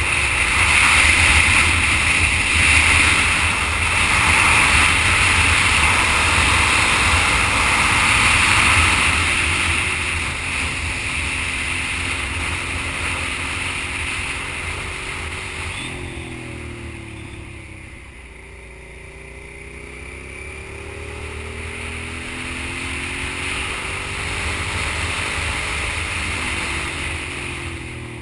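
Sport motorcycle engine running while riding a twisty road, its pitch sliding up and down with throttle through the bends. Heavy wind rush on the microphone for the first half, which drops away sharply about halfway through, leaving the engine more exposed.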